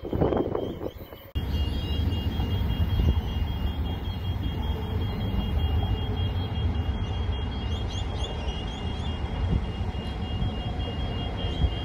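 Level crossing warning alarm sounding, a rapid high electronic beeping that keeps going steadily, over a low rumble.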